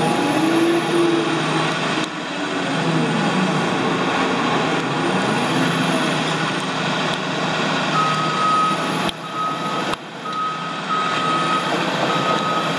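CAT 336E track excavator's diesel engine running, its pitch rising and falling over the first few seconds. From about eight seconds in, a steady high-pitched beeping alarm sounds in short, uneven beeps over the engine.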